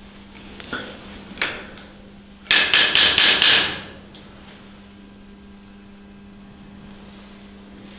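Knocking on a wall: two single knocks, then about a second and a half later a loud rapid run of about six knocks.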